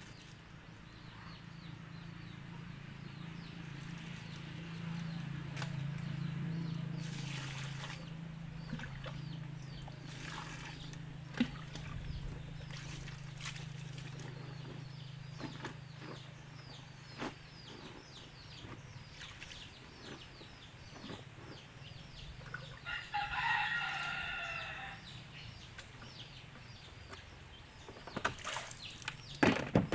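A rooster crows once, about two-thirds of the way through, over a steady low hum and scattered small chirps. A few sharp knocks come near the end.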